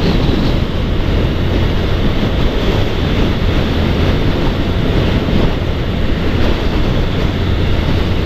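Wind rushing over the microphone of a motorcycle-mounted camera, over the steady hum of the motorcycle's engine and tyre noise as it cruises along a highway.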